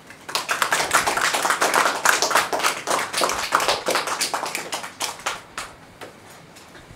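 Audience applauding: a dense patter of hand claps that starts a moment in and thins out near the end.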